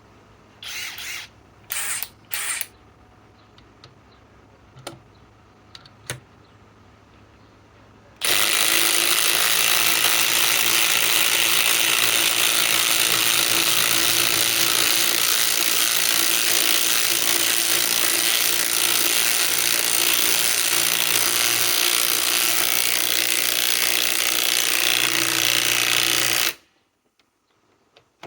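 Cordless impact wrench hammering as it drives a 5-inch lag screw into pre-drilled wood: a few short bursts in the first three seconds, then a long continuous run of hammering from about eight seconds in that stops abruptly near the end.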